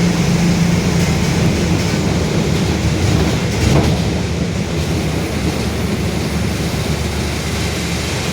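Mercedes-Benz OF-1721 city bus running, its rear differential droning very loudly under the rattling ride noise. The drone is a steady low hum that eases slightly about halfway through.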